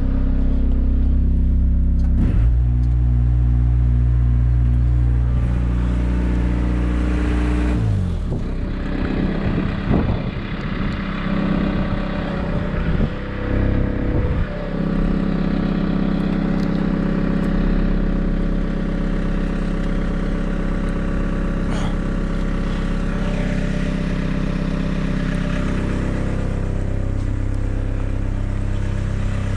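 Cat E70B excavator's diesel engine running while the hydraulics are worked, its note stepping up and down several times as the boom and bucket move under load. A stretch of irregular clatter in the middle.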